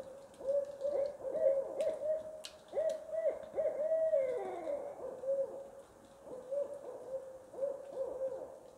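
Owl hooting: a long run of hoots, with a drawn-out falling call a little past halfway.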